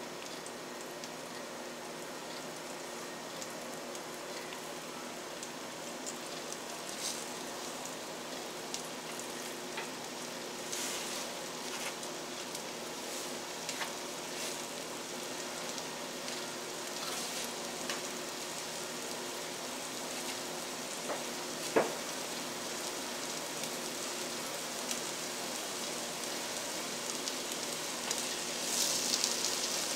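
Floured thin chicken breast cutlets sizzling steadily in melted butter and olive oil in a stainless steel skillet, with scattered light ticks. One sharp click a little past two-thirds through, and the sizzle swells louder near the end as another floured piece goes into the hot fat.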